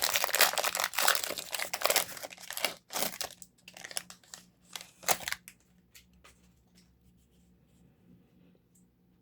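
Plastic wrapper of a Panini Prizm basketball card pack crinkling and tearing open. The crackling is dense for about three seconds, thins to a few separate crackles, and stops about five seconds in, leaving only faint handling ticks.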